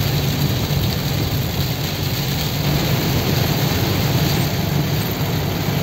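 Inside a moving vehicle's cabin in heavy rain: steady rain and road noise over the engine's low drone.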